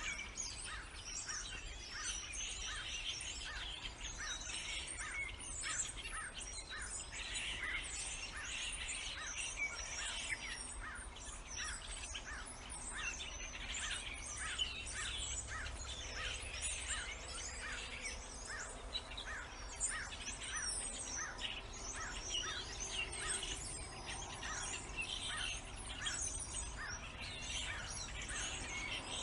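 A chorus of many birds chirping and chattering at once, with short notes repeating two or three times a second beneath busier high-pitched chatter.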